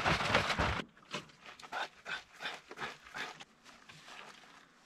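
Powdered drink mix being shaken up in a plastic gallon jug of water, the liquid sloshing loudly in the first second, then in a run of softer rhythmic sloshes about three a second that fade away.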